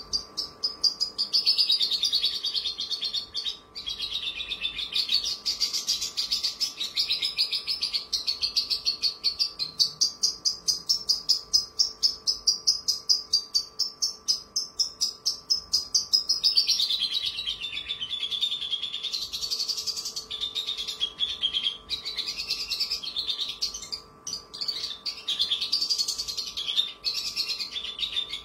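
Javan bush lark (branjangan) singing a long, unbroken song of very fast repeated notes that glide up and down in pitch, with only brief breaks about four seconds in and again near the end.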